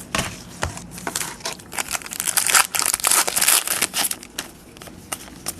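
Crinkling and crackling of a foil trading-card pack wrapper being torn open and handled, a dense run of rustles that is thickest in the middle and dies down about four and a half seconds in.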